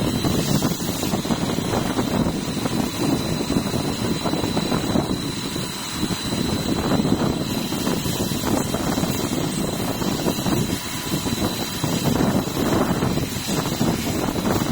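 CNC machining center running through a machining cycle on a beam clamp: a steady, rough machine noise that swells and eases irregularly, with a thin, steady high whine over it.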